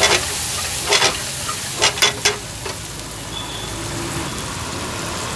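Chopped onions and tomatoes sizzling in hot oil in a black frying pan. A metal spatula stirs and scrapes against the pan five times in the first half, then the sizzle goes on alone.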